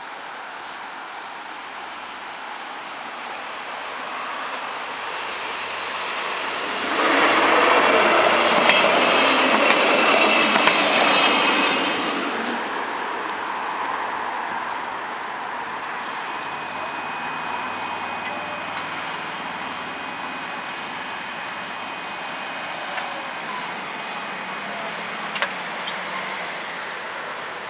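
A diesel multiple-unit train passing the level crossing: it grows louder, is loudest for about five seconds, then fades away.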